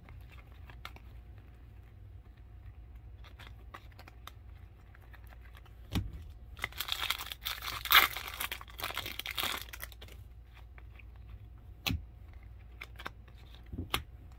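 A baseball card pack's wrapper being torn open and crinkled, loudest near the middle. Around it come the soft shuffle of cards being handled and a few sharp taps.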